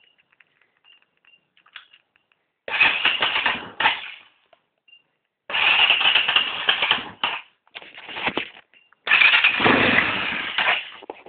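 250cc D7 motorcycle engine being revved in about four sudden bursts of one to two seconds each, dropping away between them. The owner presents its carburettor misfire as fixed.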